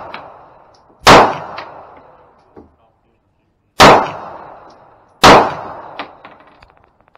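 Three pistol shots from a stainless InterArms Walther PPK/S in .380 ACP. The first comes about a second in, the second nearly three seconds later, and the third about a second and a half after that. Each shot is a sharp crack that rings out and fades, and a few small clinks follow.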